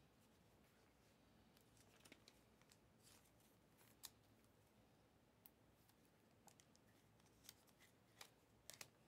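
Near silence with faint, scattered clicks and crinkles of trading cards and a shiny card pack being handled, a few sharper ticks near the end.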